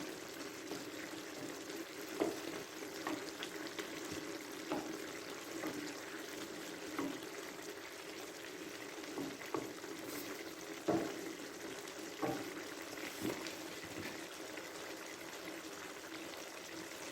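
Chicken stir fry sizzling and bubbling in a pan, with a spatula knocking against the pan now and then.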